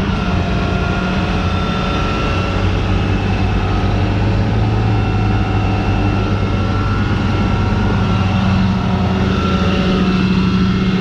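Flatbed tow truck's engine running with a steady low drone while the bed is worked to unload a vehicle, getting a little louder near the end.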